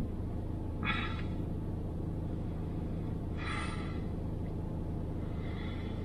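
Ford Focus ST Mk4's engine running slowly with a steady low rumble, with two brief hisses about one second and three and a half seconds in.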